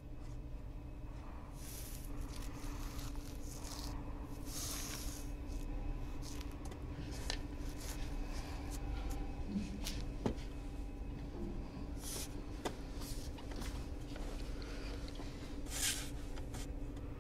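Hands brushing and scraping over a rough plaster wall in a series of short, separate rustles with a few small clicks, over a low steady hum.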